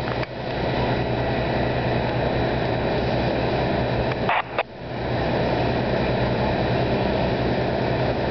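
Steady engine drone with a low hum under a broad rushing noise, typical of fireground engines running. It briefly cuts out about four and a half seconds in.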